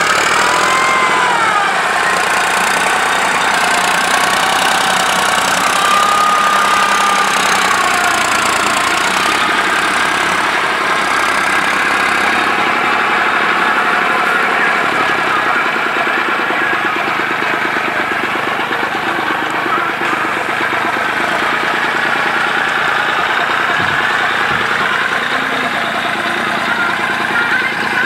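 Farm tractor's diesel engine running steadily while ploughing, with a knocking drone that wavers in pitch during the first several seconds.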